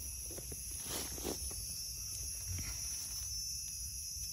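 Steady high-pitched drone of forest insects, with a few soft rustles and scrapes about a second in as dry leaf litter is disturbed while mushrooms are cut out at the stem base with a knife.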